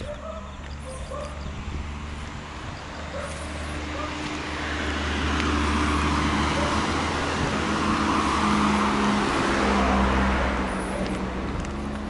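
A car approaching and driving past on the road, its tyre and engine noise swelling to a peak about eight to ten seconds in and then fading away.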